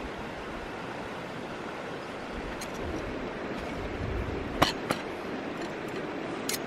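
Steady rushing of a stream, with sharp clicks of metal tent pole sections knocking together: two in quick succession past the middle and one more near the end.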